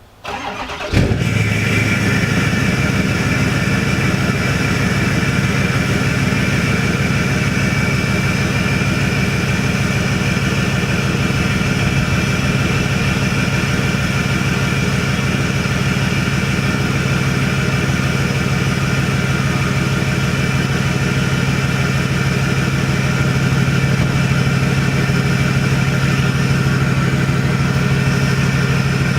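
Ford 6.4 L Power Stroke V8 diesel starting about a second in, then idling steadily through a 5-inch downpipe-back dual exhaust with no muffler.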